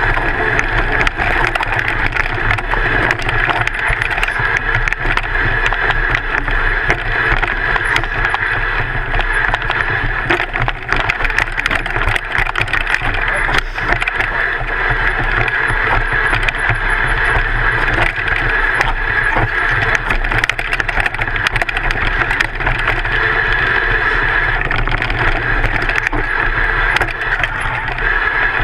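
Downhill mountain bike riding over a rocky dirt trail, heard from a camera on the front fork: continuous rattling and clatter of the bike over stones and roots, with a steady rush of tyre noise.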